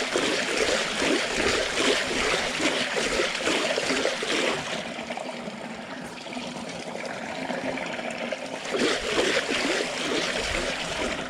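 Hooked barramundi thrashing and splashing at the water's surface, hard for the first few seconds, easing off, then splashing hard again near the end.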